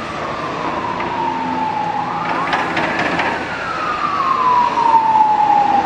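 A siren wailing: a single tone that falls slowly, sweeps quickly back up about two seconds in, then falls slowly again, rising once more at the end. A few short knocks sound near the middle over a steady background noise.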